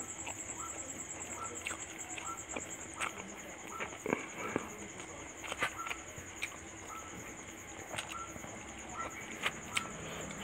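Close eating sounds of rice and fish curry eaten by hand: chewing and wet mouth clicks with the odd tap of fingers on a steel plate. Behind them runs a steady high-pitched, rapidly pulsing insect trill, like crickets.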